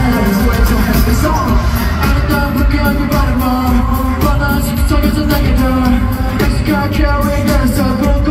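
Live K-pop performance heard through a stadium sound system: male vocalists singing over a loud, steady-beat backing.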